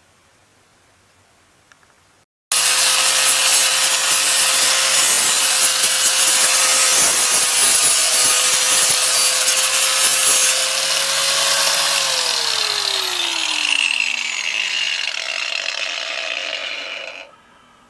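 Electric power tool running on wood, starting abruptly about two and a half seconds in with a steady motor whine. From about twelve seconds the motor's pitch falls away as it winds down, and the sound cuts off suddenly near the end.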